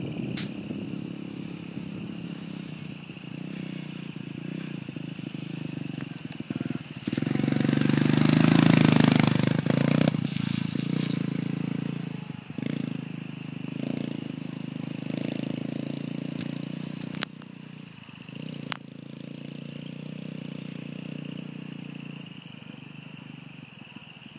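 Honda CRF70 dirt bike's small four-stroke single-cylinder engine running as the bike rides around, loudest as it passes close about eight to ten seconds in, then fading as it moves away. Two sharp clicks a second and a half apart near the end.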